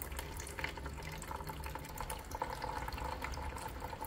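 Thin stream of water pouring steadily from an LG countertop water purifier's spout into a plastic jug, with a steady low hum underneath. The purifier is dispensing a 120 ml portion at its 40 °C setting, the first step of a reset for hot water that is not coming out hot.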